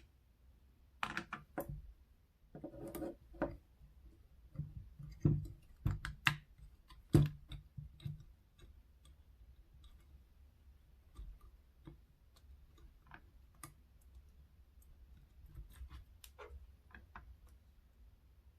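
Irregular small clicks and taps of hand tools and small parts being handled at a workbench during soldering work. They are busiest over the first eight seconds, then only a few faint ones.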